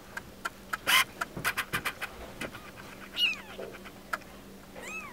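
Newborn F2 Bengal kitten mewing twice: a high cry that falls in pitch about three seconds in, and a short arched mew near the end. Before them, a quick run of clicks and scratchy rustles from the kittens being handled on a towel.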